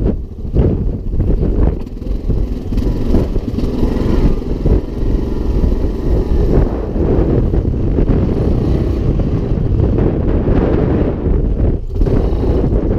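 Yamaha Grizzly 700 quad's single-cylinder engine running under way, mixed with heavy wind buffeting on the microphone.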